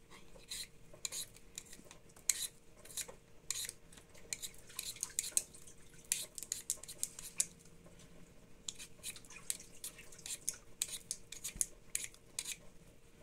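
Hand-held vegetable peeler scraping the skin off a raw potato in short, repeated strokes.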